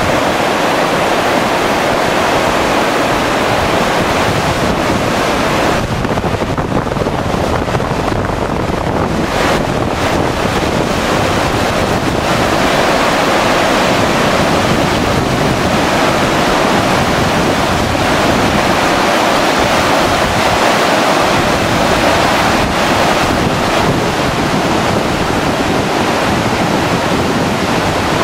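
Flash-flood water, muddy and thick with debris, rushing down a creek channel in a loud, steady torrent.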